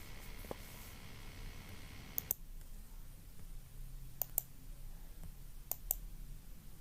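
A few sharp clicks, mostly in close pairs, spaced a second or two apart against a faint background hum.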